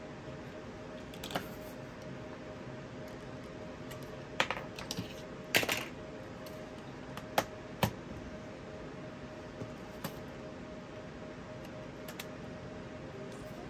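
Handling of a Sony MZ-EP11 portable MiniDisc player: a dozen or so short, sparse clicks and knocks of its plastic and metal casing and buttons, bunched mostly in the middle, over a faint steady hiss.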